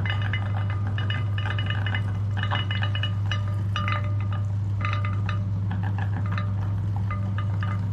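Meat grinder running with a steady low hum while slime is fed through it, with irregular clusters of clicking and crackling on top.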